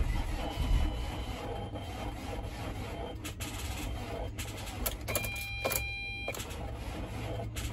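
2008 Ford Transit van's engine heard from the driver's seat: a low steady running sound with irregular clicks and knocks. About five seconds in, a high steady tone sounds for just over a second.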